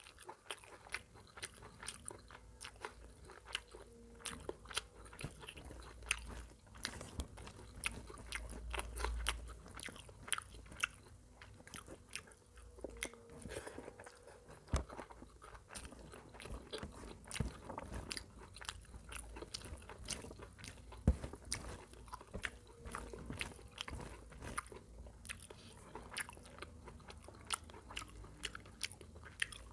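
Close-miked chewing of mutton curry and rice eaten by hand: wet mouth clicks and crunchy bites, irregular and continuous.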